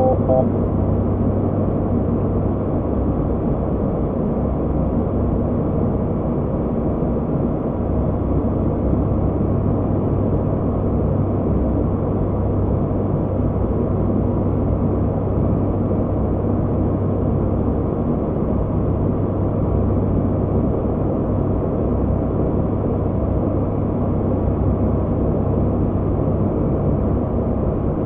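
Steady cockpit noise of an ATR 72-600 turboprop airliner in flight: the even drone of its engines and propellers, with a constant low hum and rushing airflow.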